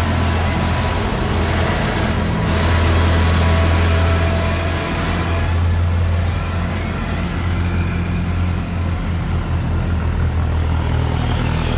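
Diesel trucks and cars passing close by on a tight curve: a steady low engine drone with tyre noise, loudest from about three to five seconds in.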